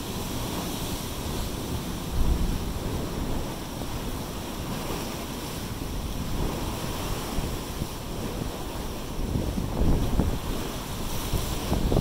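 Pacific surf churning and washing over black basalt rocks: a steady rush of white water, with wind buffeting the microphone. It swells louder about two seconds in and again around ten seconds.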